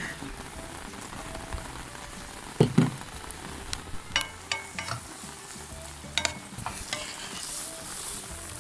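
Chopped onion, garlic and green bell pepper sizzling steadily in olive oil in a frying pan, with several sharp knocks and clicks of a utensil against the pan, the loudest a pair about three seconds in.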